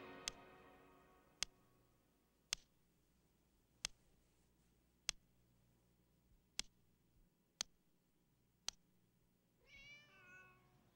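Domestic cat meowing twice near the end, after a stretch of near silence broken by a single sharp tick about every second and a quarter. Music fades out at the very start.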